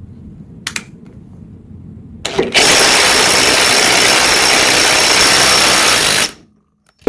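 DeWalt DCF887 impact driver on speed 3 hammering a 2-inch socket through a 1/4 to 1/2 inch adapter: a brief burst, then about four seconds of loud, continuous hammering that stops suddenly.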